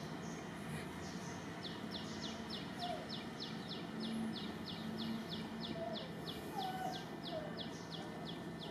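A bird calling: a steady run of short, high, falling notes, about three or four a second, starting about two seconds in.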